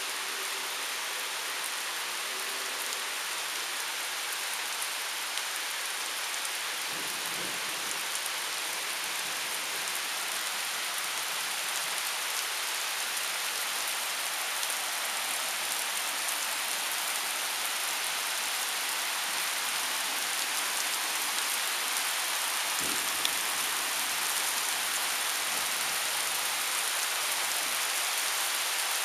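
Heavy thunderstorm rain pouring steadily, hissing and splashing on pavement and leaves, with one sharp knock about three-quarters of the way through.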